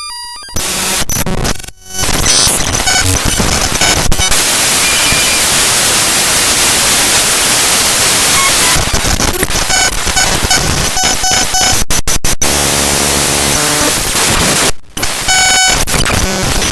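Raw binary data of HandBrake's hb.dll library file played directly as audio: loud harsh static hiss, broken by stretches of steady beeping tones and a stepped, buzzy pattern, with brief dropouts near the start and about three-quarters of the way through.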